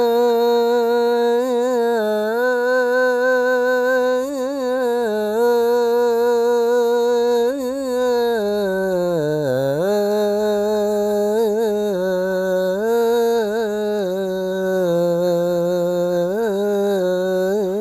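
A muezzin's solo voice holds a long, ornamented melisma of the adhan in maqam Jiharkah, stretching 'hayya 'ala' before 'as-salah'. The pitch wavers in quick trills, swoops low about nine seconds in, then climbs back to a held note. The voice is unaccompanied and unprocessed, as recorded on an old mobile phone.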